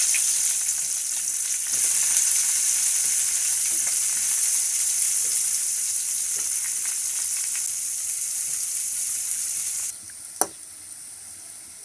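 Chopped onions sizzling loudly in hot oil in a pan, stirred now and then. The sizzle drops off sharply about ten seconds in.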